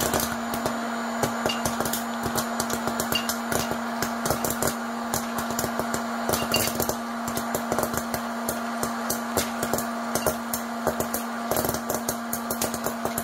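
A popcorn machine running with a steady hum while kernels pop in a quick, irregular stream of sharp cracks.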